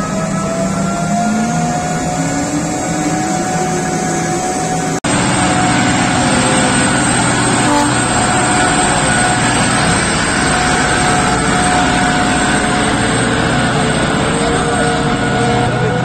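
Mining haul truck's diesel engine running loud and steady as the truck drives off, with whining tones that climb in pitch during the first few seconds. The sound breaks off for an instant about five seconds in.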